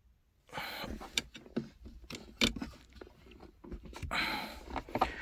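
Irregular clicks, knocks and scraping from hands prying at and pulling up the gear shifter parts, with a few sharp clicks and two short bursts of rustling scrape.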